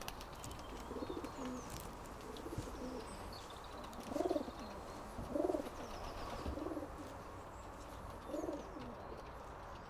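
Racing pigeons cooing in a loft: a run of low, rising-and-falling coos, the clearest about four, five and a half, and eight and a half seconds in.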